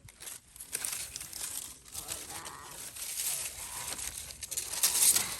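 Rustling and crackling noise, with many small crackles, growing louder near the end.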